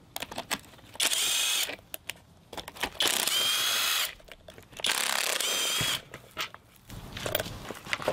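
Cordless 24V XTR driver running in three short bursts of about a second each, with a high whine over the whir, as it backs out the three bolts holding the plastic housing on the mower's brushed DC motor. Light knocks of the housing being handled follow near the end.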